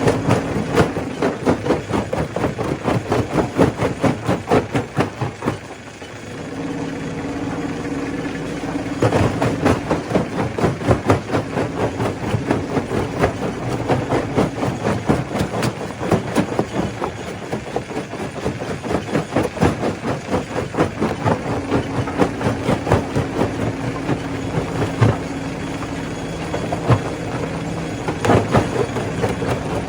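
Stone crusher running: a steady machine hum under a dense, fast clatter of rock being broken, which dips briefly around six seconds in.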